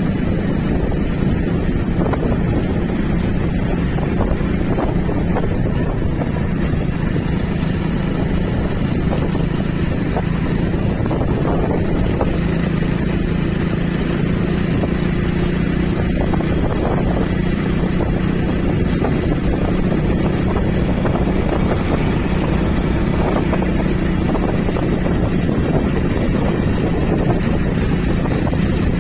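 A vehicle engine running steadily with a constant low hum, with wind rumbling on the microphone.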